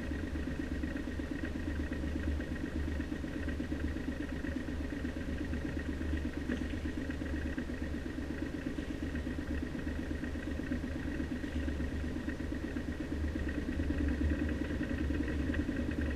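A sailing yacht's inboard marine diesel auxiliary engine running steadily at low revs while the boat manoeuvres, getting a little louder over the last few seconds as the revs are brought up.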